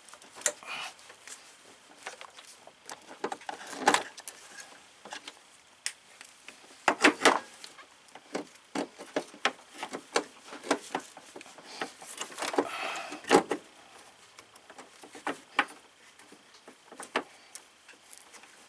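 Irregular clicks, knocks and rustles of hands and hose clamp pliers working a spring clamp and rubber radiator hose into place, with a longer scraping rustle about two-thirds of the way through.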